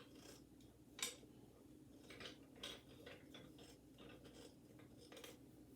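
Near silence broken by a few faint clicks and light scrapes of birdbath parts being handled and screwed together, the clearest about a second in.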